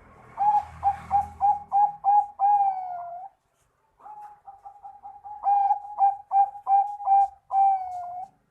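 Bangkok-strain zebra dove (perkutut) cooing its song twice: each phrase is a quick run of short, even notes ending in one longer, drawn-out note.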